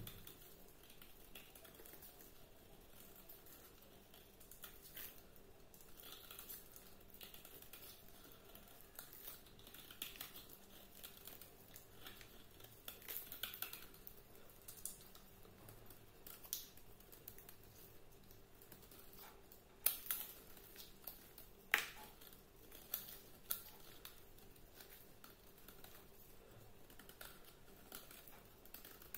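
Utility knife blade shaving and scraping a bar of dry white soap, a faint crisp crackle as flakes peel off. A handful of sharper clicks about two-thirds of the way in are the loudest sounds.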